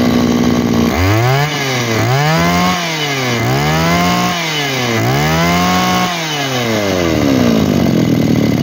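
Mitsubishi TL231 23 cc two-stroke brush cutter engine with a One Brother carburettor, just started: it idles for a moment, then is revved up and let back down about five times in quick succession by hand at the carburettor before settling back to idle. It runs and picks up readily, showing a good start and throttle response.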